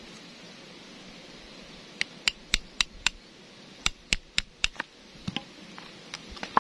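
Sharp metallic knocks of a flat screwdriver driven against a worn oil seal in a power tiller's cast-iron wheel-shaft housing, working the seal out. They come in two quick runs of about five knocks, then a pair and a few fainter taps near the end.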